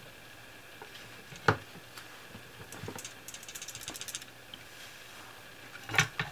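Hard plastic knocks from a handheld AEMC SL261 clamp-on current probe being handled, with a quick run of light clicks in the middle, about ten a second for around a second, as the probe is shaken and a loose part rattles inside its housing.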